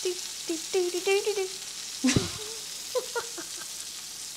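Burger patty sizzling steadily in a cast iron skillet, overlaid with quick runs of short, high, squeaky pitched chirps and a single thump about two seconds in.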